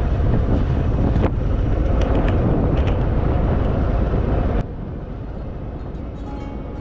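Harley-Davidson Fat Boy V-twin running on the road, with heavy wind rush on the microphone. About four and a half seconds in, the noise drops suddenly to a quieter, steady hiss.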